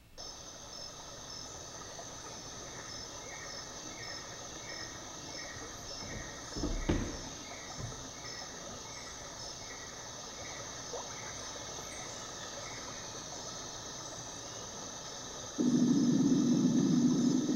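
Soundtrack of a video installation played back over room speakers: an outdoor insect chorus, a steady high chirring with evenly repeated chirps a couple of times a second. There is a single thud about seven seconds in, and a much louder low drone sets in near the end.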